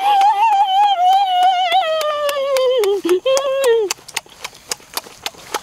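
A long, high-pitched, wavering vocal sound from a man eating, held for nearly four seconds and sliding down in pitch at the end, then a quick run of clicking chewing and lip-smacking sounds.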